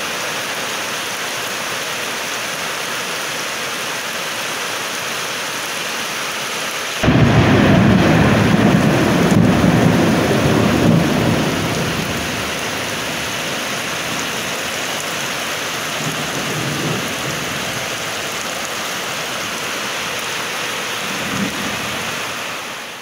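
Heavy rain falling steadily, with a loud rumble of thunder that breaks in suddenly about a third of the way through and fades away over several seconds.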